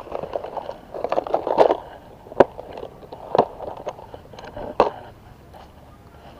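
Clear plastic tackle box being handled and opened: plastic rattling and clattering, with lures knocking about inside, then three sharp plastic clicks in the middle as the box and lures are handled.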